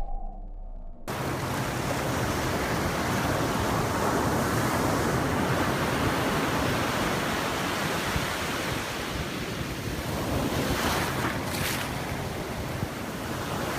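Ocean surf breaking and washing up the shore, with wind buffeting the microphone. It comes in suddenly about a second in and stays loud and steady.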